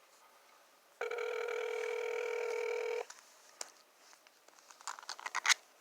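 Telephone ringback tone through a phone's speaker: one steady ring lasting about two seconds, starting about a second in. A quick run of sharp clicks follows near the end.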